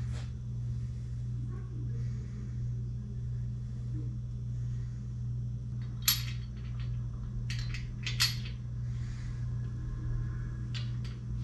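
Light metal clinks as engine main bearing caps are handled and set in place, the two sharpest about six and eight seconds in, with a few fainter ticks, over a steady low hum.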